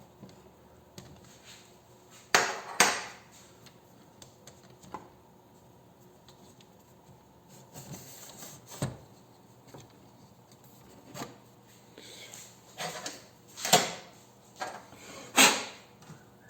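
Clutch parts and tools being handled on a workbench: scattered knocks and clinks, with two sharp knocks close together about two seconds in and two more near the end.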